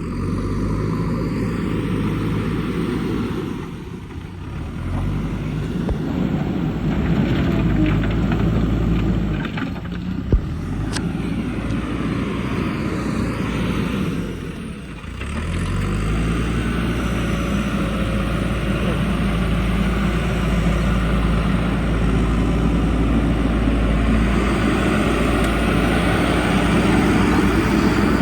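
Backhoe loader's diesel engine running under load while working, easing off briefly twice, with a single sharp knock about ten seconds in.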